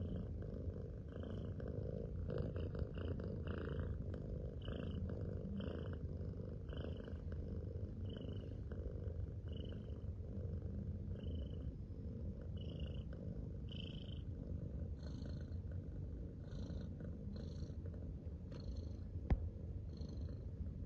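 Domestic cat purring: a continuous low rumble, with a faint higher sound about once a second and a single sharp click near the end.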